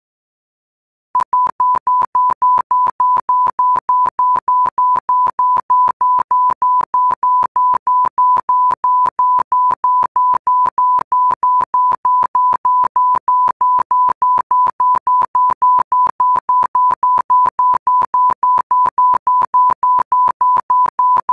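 Rapid, evenly spaced electronic beeps at one steady pitch, about four a second, starting about a second in. This is the warning alarm of a driver-assistance object detector, sounding while it flags a vehicle ahead.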